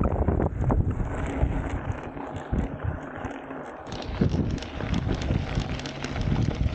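Mountain bike riding fast on a dirt-and-gravel track: wind buffets the action camera's microphone in a steady low rush, with tyre rumble and short rattles from the bike over the bumps. The rush eases for a couple of seconds in the middle, then comes back with more rattling.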